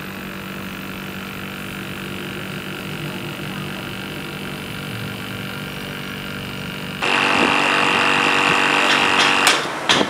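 Reconditioned refrigerator compressor running on a test bench with a steady electric hum. About seven seconds in the sound becomes suddenly louder and harsher, and a couple of sharp knocks come near the end.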